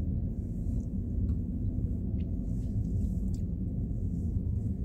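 Steady low rumble of a car's engine and tyres, heard from inside the cabin while driving slowly, with a few faint ticks.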